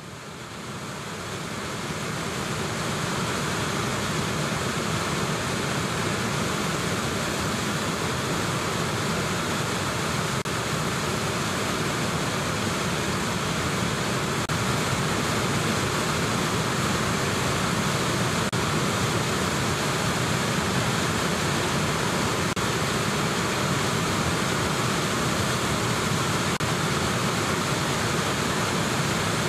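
Whitewater rapids: a steady, even rush of churning river water that fades up over the first couple of seconds.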